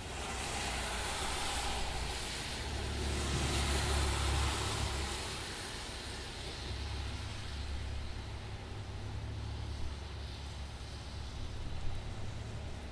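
Cars passing on a wet road: a steady hiss of tyres on wet pavement over a low engine rumble, swelling as a vehicle passes about four seconds in and easing off after, with rain in the background.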